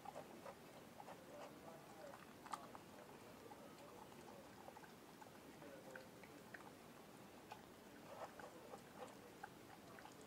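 Faint, irregular chewing, licking and small clicks of a dog eating from a bowl.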